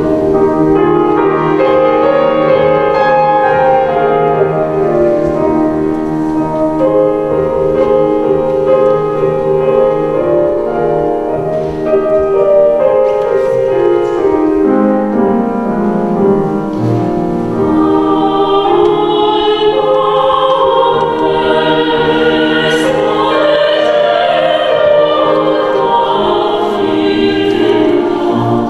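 Classical music: piano with operatic singing. Held notes fill the first half, and a singer with wide vibrato comes forward a little past the middle.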